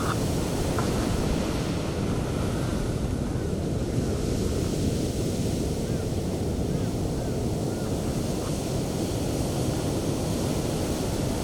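Sea waves breaking and washing up a beach: a steady, heavy rush of surf, with wind on the microphone.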